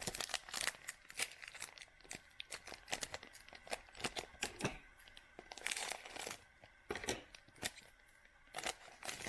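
A trading card pack wrapper being torn open and crinkled, with sharp irregular crackles and a denser rustle about six seconds in.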